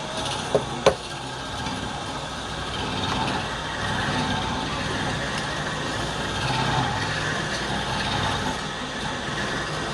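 Wood lathe running steadily, with two sharp knocks about half a second and a second in.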